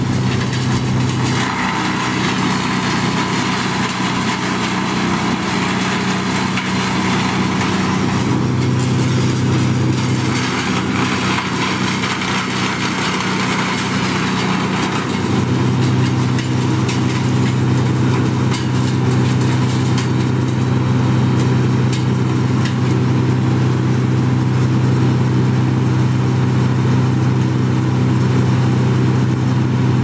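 Wood chipper's engine running steadily; twice in the first half its even hum gives way for several seconds to a harsher, noisier sound.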